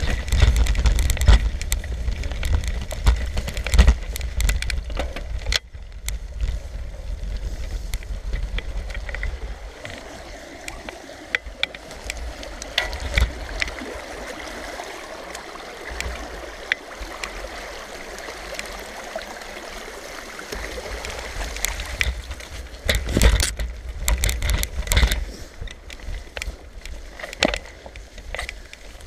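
Wind buffeting the microphone of a bicycle being ridden, heavy rumbling gusts, mixed with the hiss of the tyres and scattered rattles and clicks from the bike. The wind drops away for a stretch in the middle and picks up again about two-thirds of the way through.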